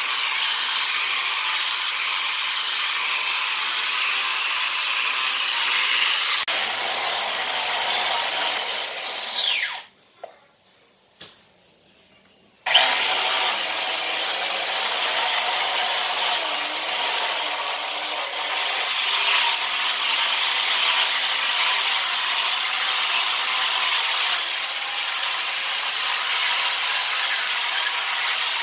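Electric angle grinder fitted with a sanding disc, sanding a red cement floor: a steady high whine. About nine seconds in the whine falls away as the motor winds down, leaving near quiet for a few seconds, then the grinder starts again suddenly and runs steadily.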